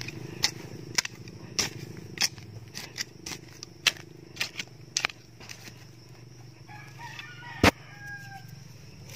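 A hand tool's blade striking and scraping into dry soil, about two sharp strikes a second, with one loud strike late on. In the second half, a rooster crows in the background.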